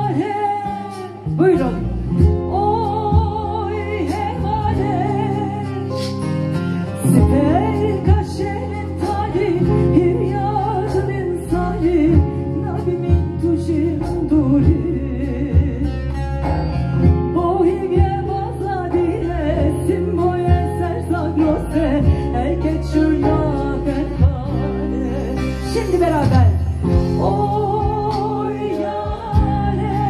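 A woman singing into a microphone over instrumental accompaniment, amplified through a PA, her held notes wavering with vibrato.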